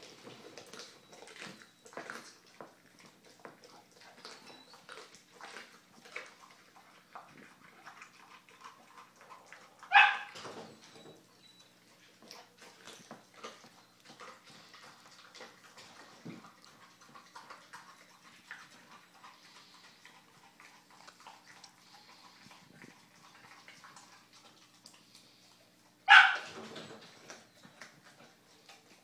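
American Staffordshire Terrier chewing and tearing at a whole raw chicken: a steady run of small wet chewing and crunching clicks. Two short, loud dog vocalizations come about ten seconds in and again near the end.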